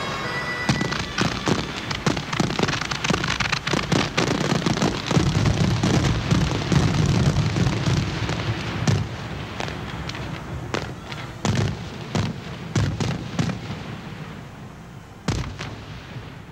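Fireworks going off: a dense stream of crackling and popping bangs with a low rumble under them. They thin out to scattered bangs and fade away, with one last loud bang near the end.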